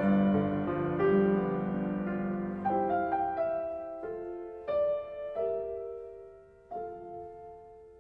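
Slow, gentle solo piano music: a held chord fading away, then single notes and soft chords struck about once a second, each dying away.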